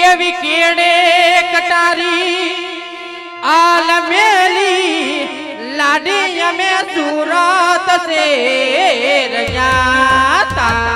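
Live Gujarati folk music: a loud, heavily ornamented melody of long held notes with wide vibrato over a steady drone. Drums join near the end.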